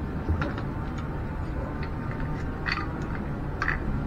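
Light, sharp clicks and clinks, about five of them spread out, as a brass shower mixer valve and its copper pipe fittings are handled and screwed together, over a steady low background rumble.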